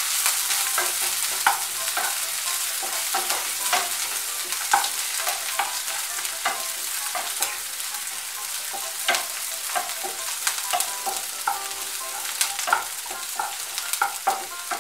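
Chopped onion sizzling in hot mustard oil in a kadai, with a steady frying hiss, while a spatula stirs it, scraping and tapping the pan in many irregular light clicks.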